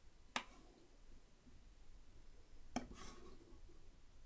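Two faint, sharp computer mouse-button clicks about two and a half seconds apart, pressing and releasing to drag a window across the desktop.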